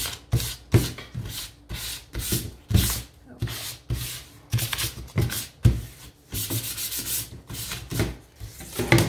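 Hand sanding of a thin laser-cut wooden frame with a small sanding pad: quick back-and-forth scraping strokes, about two to three a second, wearing the stain off the wood's edges to distress it.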